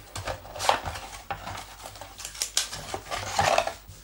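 Cardboard packaging and paper leaflets being handled: irregular rustling and scraping as the box's inner flaps are opened and the booklets are slid out, with a few louder scrapes.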